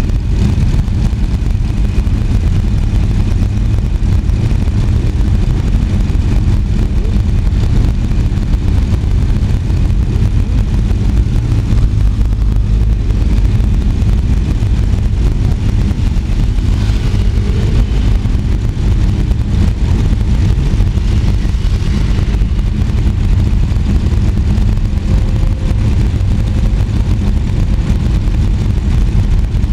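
Several large road motorcycles running at idle and low revs, pulling away slowly one after another.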